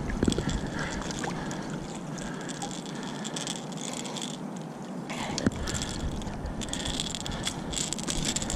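Shallow river water rippling and flowing steadily, with a few light knocks from handling about a second in and again about five seconds in.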